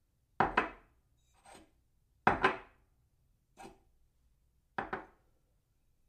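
A cup set down on a saucer three times, each a sharp double clink with a short ring. Fainter single clinks fall between them.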